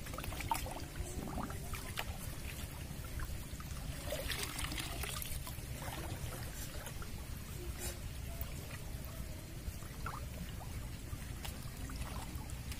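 Shallow water trickling and splashing as a scoop basket is dragged through a muddy pool and lifted, water running off it. A low steady rumble sits underneath.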